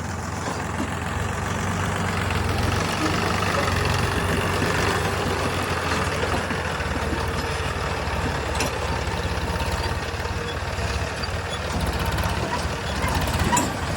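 Heavy diesel engines of a backhoe loader and a tractor running under load. The hum grows louder over the first few seconds, with two short sharp knocks, one about the middle and one near the end.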